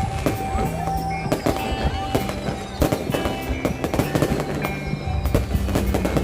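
Fireworks bursting and crackling in rapid, irregular succession, with music playing over them.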